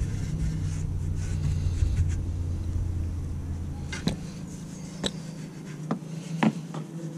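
Low, steady vehicle engine rumble that dies away about halfway through, followed by four sharp clicks and taps as a brush and a plastic bottle of toilet cleaner are handled at the car's exhaust tips.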